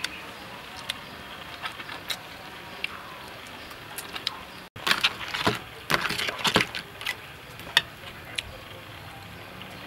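Crab shells being cracked and picked apart by hand while eating: scattered sharp clicks, with a burst of louder cracking and clatter around the middle.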